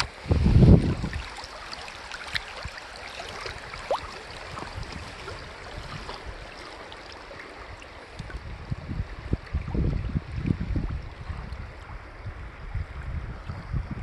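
Moving river water rushing around a kayak, a steady splashing hiss. Wind gusts rumble on the microphone about half a second in and again through the last few seconds.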